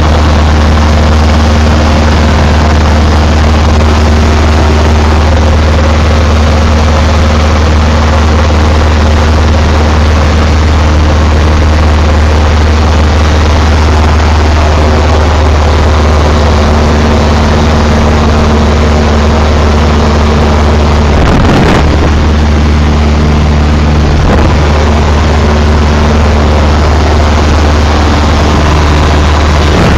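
Cessna 172's piston engine and propeller droning steadily at cruise, heard loud inside the cabin. One brief thump about two-thirds of the way through.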